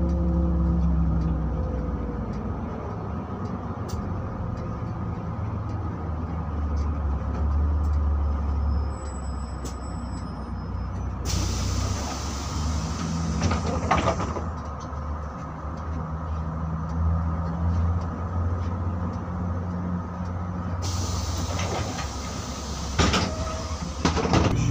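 Inside a LiAZ 5292 city bus: the engine runs with a steady low drone, and a few sharp knocks and rattles come from the cabin.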